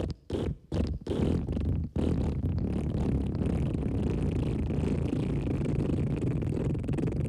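Wet fart sound: a few short sputtering bursts in the first two seconds, then one long, steady low fart.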